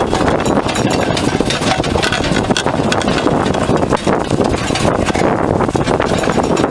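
Minimum-gauge steam train running slowly: a steady clatter of the wheels and running gear, heard from an open wagon close behind the locomotive.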